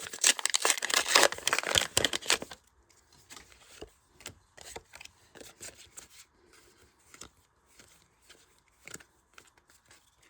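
Foil trading-card booster pack being torn open and crinkled for about two and a half seconds, then faint clicks and rustles of the cards being handled.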